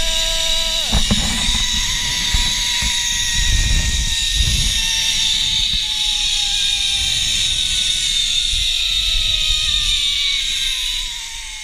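Zipline trolley pulleys running along the steel cable: a high whine that slides steadily down in pitch as the rider slows, over wind buffeting the microphone. A brief yell at the start, and the sound drops off near the end as the ride ends.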